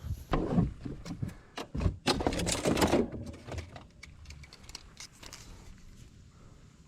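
Rustling and clicking handling noise, loudest in the first three seconds, then fading to faint scattered ticks.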